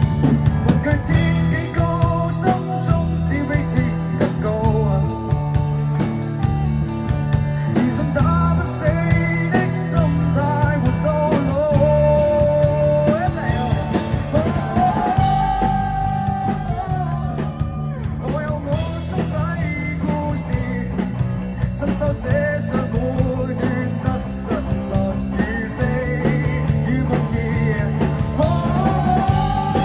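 Live rock band playing: strummed acoustic guitar, electric guitar, electric bass and a drum kit, with a woman singing lead over them.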